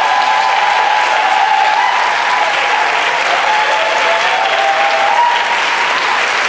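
An audience applauding steadily, with a few drawn-out voices calling out over the clapping.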